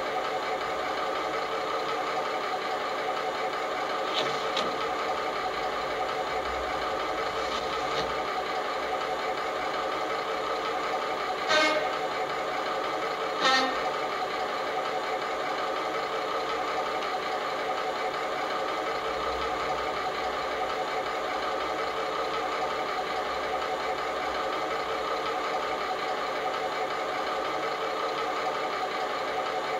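Sound decoder of a model BR Class 29 diesel locomotive playing a steady idling diesel engine through the model's speaker. Two short horn toots come about 12 seconds in, two seconds apart.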